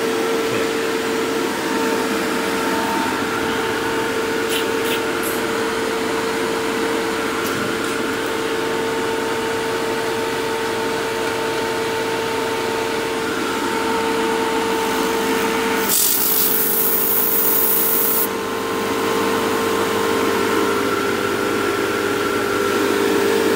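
Fieldpiece MR45 refrigerant recovery machine running steadily just after start-up, a constant motor hum and whine while it recovers refrigerant from the freezer. About two-thirds of the way through, a loud hiss of about two seconds cuts in over it, and the machine's tone shifts slightly once the hiss stops.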